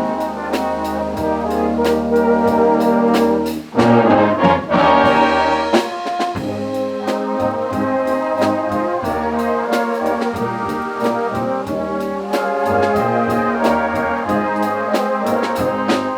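Intro music with brass, trombone and trumpet, over a steady beat.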